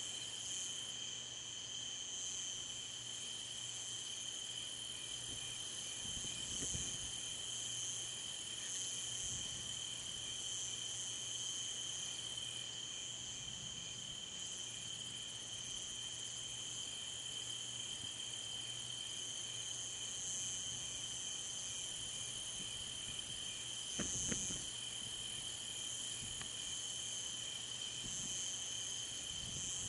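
A steady chorus of night insects: one continuous high trill with a higher, pulsing chirping that swells and fades every few seconds. Faint low rumbles come and go beneath it, with a brief low thump about three-quarters of the way through.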